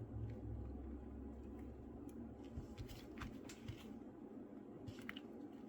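Faint, scattered small clicks and taps of electrolytic capacitors and meter test leads being handled during a capacitance test, over a low steady hum and room tone.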